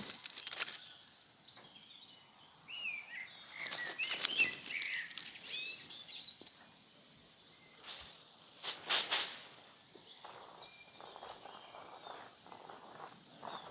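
Small birds chirping in outdoor rural ambience, with a few brief scuffing noises, the loudest about two-thirds of the way through.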